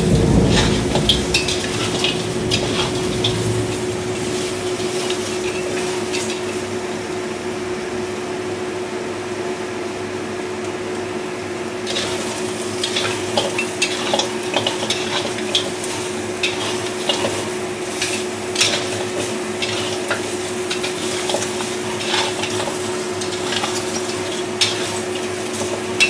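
Metal spatula scraping and clinking against a stainless steel wok as blanched pork trotters are stirred and dry-fried, with a steady sizzle of their moisture cooking off. A dull thud comes right at the start, and a steady hum runs underneath.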